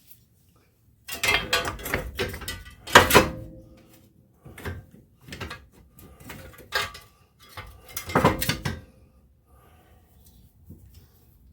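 Metal clanking, knocking and scraping as a front wheel unit bearing and its shield are worked into place against a steering knuckle. The knocks come in three bunches, the loudest about three seconds in, with a brief metallic ring.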